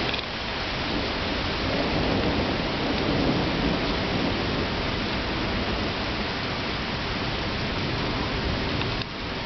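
Steady heavy rain falling, with a low rolling rumble of thunder that builds from about a second and a half in, peaks a little after three seconds, and fades.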